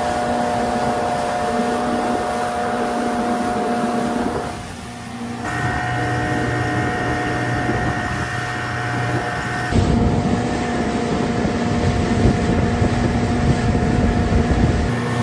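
Old two-stroke outboard motor running steadily under way on a small skiff, with water and wind noise. The mix shifts abruptly about five and about ten seconds in.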